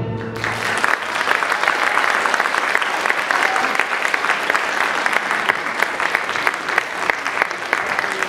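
Theatre audience applauding: dense, steady clapping that breaks out about a third of a second in, as the final orchestral chord dies away.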